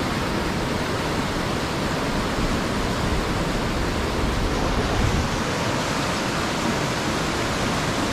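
Waterfall: water pouring steadily over rock as a constant rush of noise.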